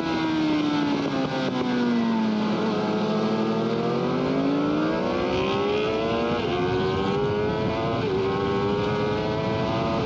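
Sports motorcycle engine at full revs, heard onboard on a race track. The revs fall as the bike slows into a corner, then climb again as it accelerates away. Two quick upshifts come in the second half, each a short drop in pitch.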